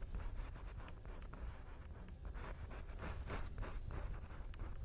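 Paintbrush stroking oil paint onto canvas: a run of short, irregular scratchy brush strokes over a steady low hum.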